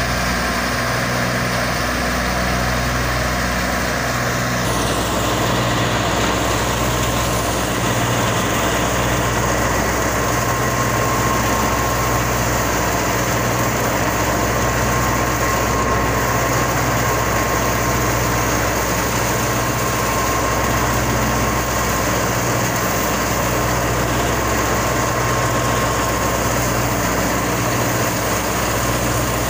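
Fiat 480 tractor's three-cylinder diesel engine running steadily while it drives a wheat thresher, the engine's low hum mixed with the thresher's dense steady whir.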